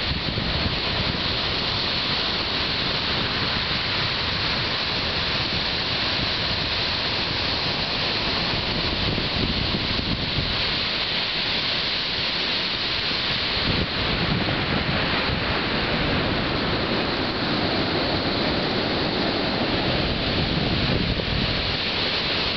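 Surf breaking and washing onto a shingle beach, a steady rushing noise that grows fuller in the second half, with wind buffeting the microphone.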